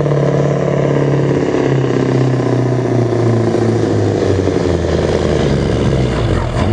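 Scania 143M 420 truck's V8 diesel running flat out while pulling a weight-transfer sled. Its steady drone slowly drops in pitch as engine speed falls under the sled's growing load.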